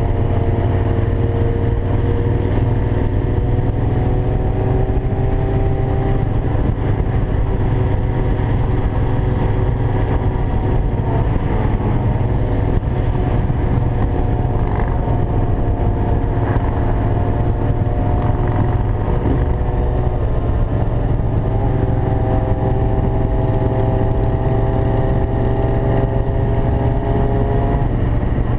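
Several motor vehicle engines running together in a loud, continuous rumble, their pitch drifting slowly up and down as they rev.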